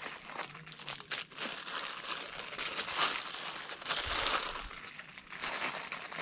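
Thin plastic bag crinkling and rustling as it is handled, opened and emptied into a steel mug, with an irregular crackle that swells around the middle.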